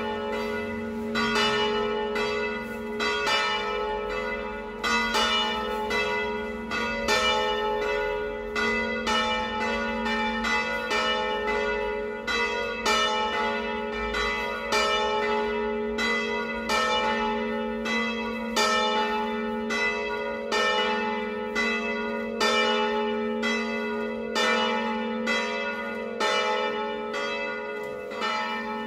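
Two swinging church bells tuned to A3 and B3, the larger pair of a four-bell peal, ringing a festive peal. The strokes follow each other in a steady, even rhythm, about two a second, over a continuous ringing hum.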